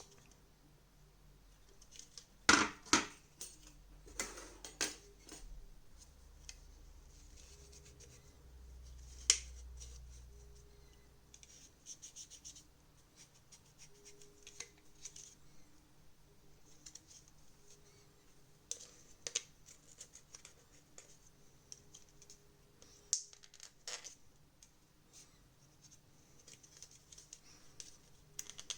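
Light scrubbing and scratching on a TV remote's circuit board as it is cleaned, in short bouts of quick strokes. A few sharp clicks and knocks of the parts being handled come through, the loudest a couple of seconds in.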